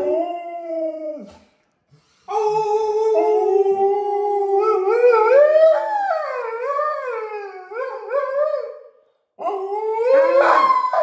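Two malamutes howling together in long drawn-out howls at two pitches that waver up and down. They pause briefly about a second in and again near the end, then start up again.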